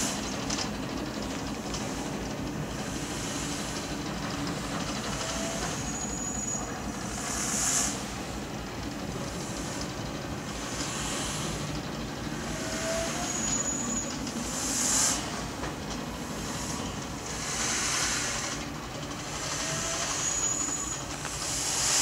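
0-6-0 diesel shunter running steadily at low speed as it draws a steam locomotive through the yard, with a hiss swelling and fading every few seconds.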